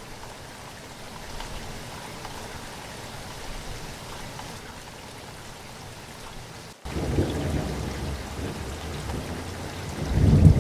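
Heavy rain falling steadily. About seven seconds in, after a brief dropout, the rain turns louder and a deep rumble of thunder comes in, swelling near the end.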